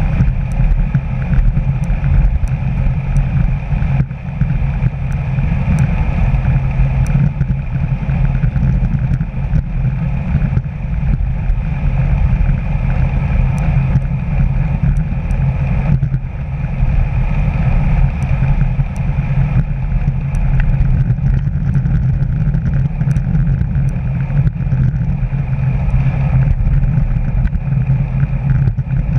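Steady wind rush and tyre noise from a road bike riding at about 20–25 mph, picked up by a handlebar-mounted GoPro, with a deep rumble underneath and a few faint ticks.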